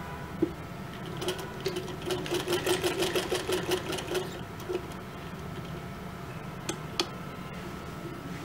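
Domestic sewing machine running a quick burst of stitches for about three seconds, starting about a second in, as it sews a folded appliqué edge down onto lawn cloth. There are a few single sharp clicks before and after the run.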